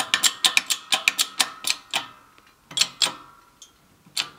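Shop press being worked to push a rod wiper seal into a hydraulic cylinder gland nut with a large socket: a quick run of sharp metallic clicks, about five a second, for the first two seconds, then a few scattered clicks. The seal is a tight fit and needs a lot of pressure.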